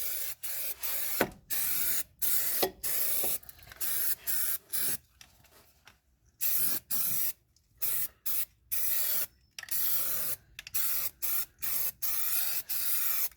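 Bed liner coating being sprayed in short hissing bursts, roughly one or two a second, with a brief lull around the middle.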